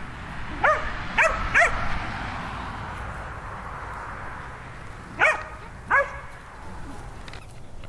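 Dog barking in play: three quick high barks in the first two seconds, then two more a few seconds later.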